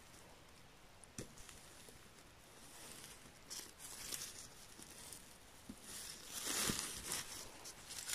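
Gloved hands rustling and tearing through dry moss and forest litter while picking mushrooms, with a few small clicks and a louder crackle about six and a half seconds in.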